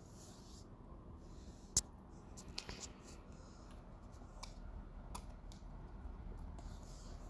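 A few sharp little clicks and taps from tools and small parts being handled inside an opened smartphone during disassembly, the loudest about two seconds in.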